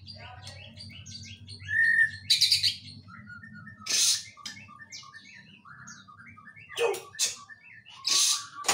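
White-rumped shama singing a varied song of short whistled notes broken by four loud harsh calls. The song is filled with mimicked pied triller (kapas tembak) calls.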